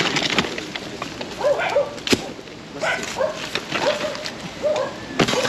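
Rustling and knocking of leaves, rubble and loose debris being moved by hand. Short pitched animal calls, most likely a bird, repeat several times through the middle.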